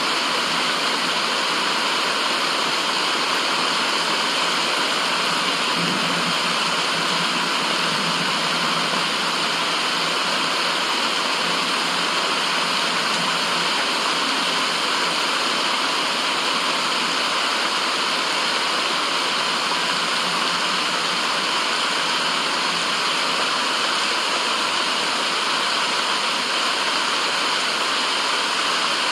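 White-noise track: a steady, even rushing hiss with no breaks or changes.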